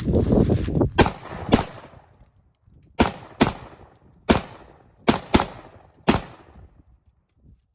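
A series of eight gunshots at uneven spacing, some in quick pairs, each with an echoing tail, following about a second of low rumbling noise.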